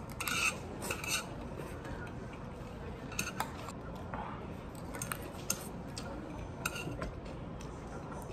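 A metal spoon clinking against a stainless steel bowl during eating: about a dozen short, bright rings in small clusters of two or three, over a steady low room hum.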